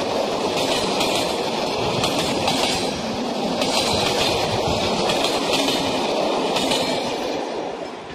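Passenger coaches of a train passing close by: a loud, steady rumble of wheels on the rails that fades as the last coach goes by near the end.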